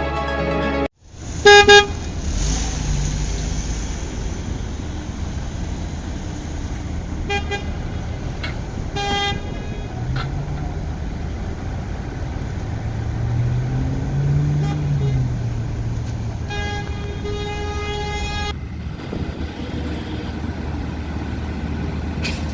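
Construction-site vehicles: a diesel engine running steadily, revving up and falling back in the middle, with several short vehicle-horn honks, the loudest about a second and a half in and a longer run of honks near the end.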